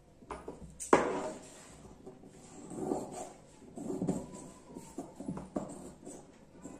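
Large tailor's shears knock sharply on the table about a second in, then cut through lining fabric in several snips along the neckline.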